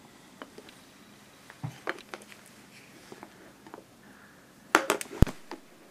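Scattered light clicks and taps of metal tweezers handling a small chip on a circuit board. Near the end comes a louder flurry of clicks with one low thump.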